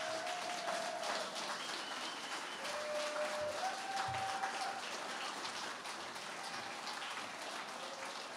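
Audience applauding, a dense patter of hand claps that slowly dies down toward the end, with a few faint voices calling out over it.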